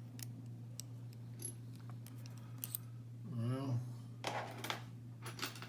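Small metal hand tools (Allen wrenches) clinking and clattering as they are sorted through, a few scattered clicks and then a cluster of clatter near the end, over a steady low hum. A brief murmured voice sound comes about halfway through.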